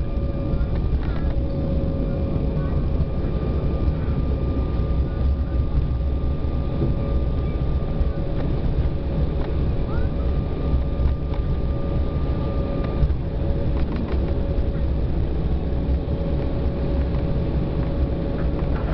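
Cabin noise inside an Embraer 190 twin-turbofan jet rolling out on the runway after touchdown: a steady deep rumble of engines and wheels, with a thin steady tone that stops about two-thirds of the way through.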